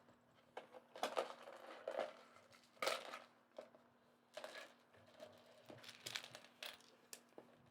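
Small plastic building pieces clicking and rustling as they are handled and fitted together, a dozen or so short irregular clicks. A faint steady hum runs underneath.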